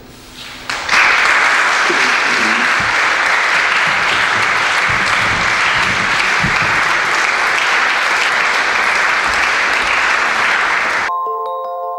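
Concert audience applauding: steady, dense clapping that starts about a second in and is cut off abruptly near the end, where a short chiming jingle with bell-like tones takes over.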